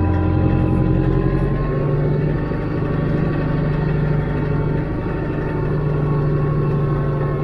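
Branson compact tractor's diesel engine running steadily as it drives. Its note shifts about two seconds in.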